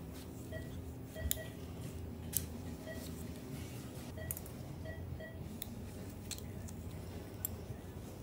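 Steel surgical instruments clicking as a needle holder and scissors are handled during suturing, over the short, evenly repeating beeps of an anaesthesia monitor tracking the cat's heartbeat.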